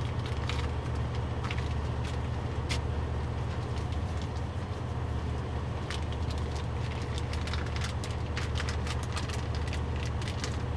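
Semi truck's diesel engine idling as a steady low rumble, heard inside the cab. Scattered short crackles and clicks sound over it, growing denser in the second half.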